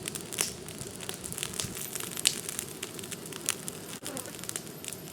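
Brush-pile fire of oak tops and shrubs crackling, with irregular sharp pops and snaps over a steady low hiss; the pile still holds a lot of green wood. Two pops, about two and three and a half seconds in, stand out.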